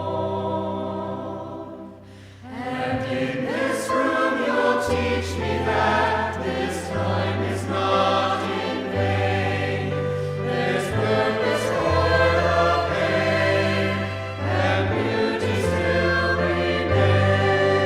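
Choral church music: voices singing with instrumental accompaniment. The music drops away briefly about two seconds in, then a new phrase begins.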